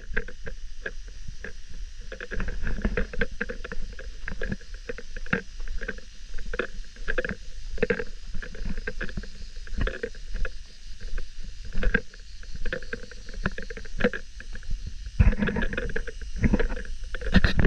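Irregular crunching footsteps on a stony trail, about one or two a second, over a steady low wind rumble on the microphone.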